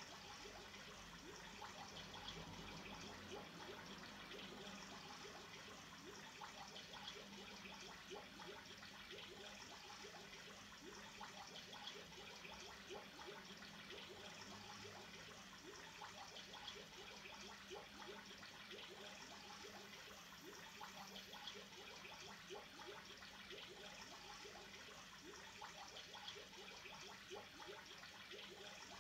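Aquarium water trickling and bubbling faintly and steadily, a continuous fine patter of small splashes.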